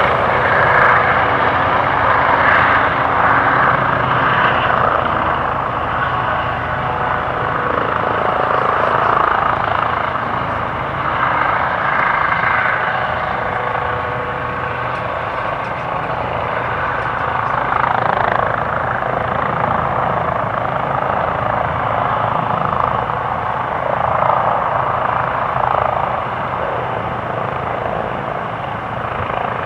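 Airbus Helicopters H135 with its twin turbine engines, main rotor and Fenestron ducted tail fan running steadily as it hovers low and sets down. The sound grows gradually quieter toward the end.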